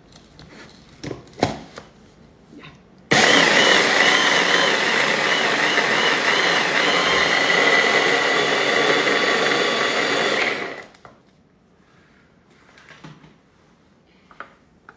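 Bosch 800 W hand blender on its chopper attachment, switched on about three seconds in and running steadily for about seven and a half seconds, grinding a cocoa mixture, with a steady high whine over the motor noise. A few knocks come before it as the attachment is handled, and there are light clicks after it stops.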